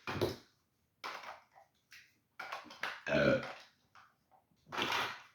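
A person making a series of short burp-like throat noises, the loudest about three seconds in.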